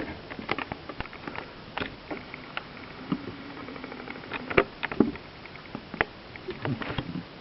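Irregular small clicks and knocks, a few of them sharper about four and a half, five and six seconds in, with a faint low steady hum in the middle and again near the end.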